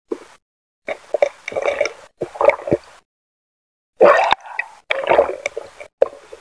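Underwater gurgling and bubbling in irregular bursts, with dead-silent gaps between them.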